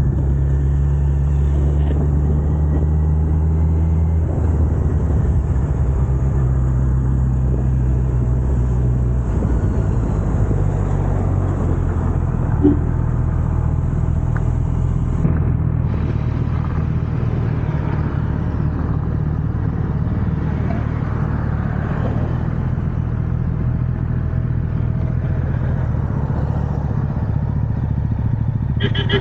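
Kawasaki Z900's inline-four engine running on the move with its stock exhaust, a steady note that drops in pitch twice, about four and about nine seconds in.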